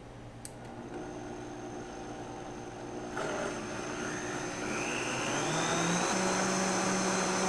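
Vitamix blender motor started on low and turned up with the speed dial, blending a coconut-milk mix. Its whine grows louder about three seconds in and rises in pitch a few seconds later as the speed goes up.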